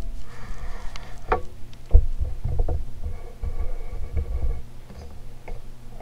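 Golden Fan model 168 industrial ceiling fan running, with a faint steady hum and irregular low thumps and a few sharp clicks.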